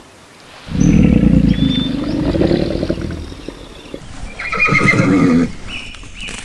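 A horse neighing: a long low call, then a shorter higher whinny about four seconds in.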